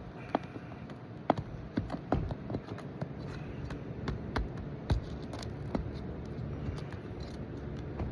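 Irregular sharp taps, clicks and scrapes of hand tools and asphalt shingles being worked during a shingle repair, about one or two a second.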